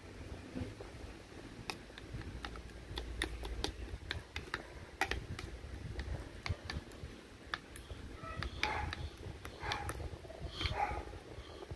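A metal spoon mashing soft cooked squash and rice in a bowl, with irregular light clicks as it knocks and scrapes against the bowl.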